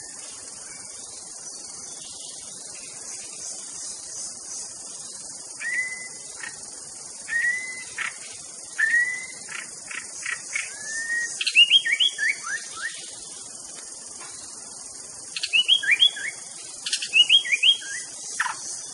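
White-rumped shama singing: after about five seconds of insects alone, a few slurred whistles come roughly every one and a half seconds, then two quick runs of falling notes with a short pause between. A steady high chirring of crickets runs underneath.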